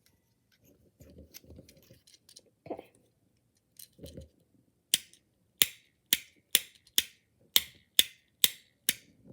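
Fidget pad being clicked over and over: sharp plastic clicks at about two a second, starting about halfway through after some soft handling.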